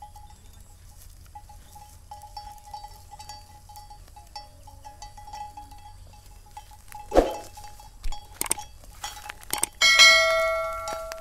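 A faint high tone pulsing on and off at one pitch, with a short loud sound falling in pitch about seven seconds in and a few sharp clicks. Near the end comes the loudest sound, a ringing bell-like chime that fades over about a second: the sound effect of a subscribe-button animation.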